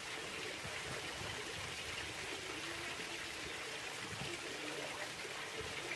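Water trickling and running steadily in a canal lock chamber.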